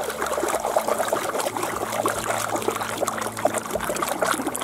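Pool water sloshing and trickling as a dog paddles through it, a steady patter of small splashes and drips.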